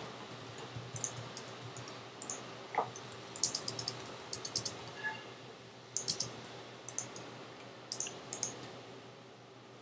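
Computer keyboard typing and mouse clicks: short, quiet key clicks in irregular bursts as a phone number and a short text message are typed, over a faint steady hum.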